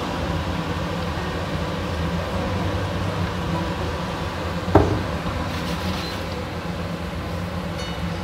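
Goat meat frying in olive oil in a large stainless steel pot: a steady sizzle with a low hum underneath, and one sharp knock a little under five seconds in.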